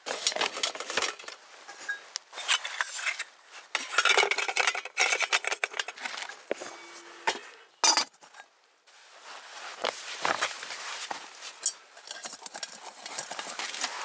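Stainless steel billy pot being packed: gear nested inside clinks and scrapes against the metal, and the lid is pressed on with a sharp click about eight seconds in. Cloth rustling near the end as the pot's canvas stuff sack is handled.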